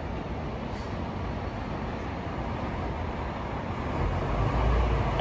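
Fire engine's diesel engine rumbling over steady street noise, growing louder about four seconds in as the rig pulls out of the firehouse bay.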